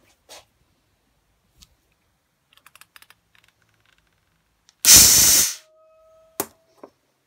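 Homemade glue-spinning web shooter firing: a few small clicks of handling, then one loud hiss lasting under a second about five seconds in. A faint steady tone and a sharp click follow.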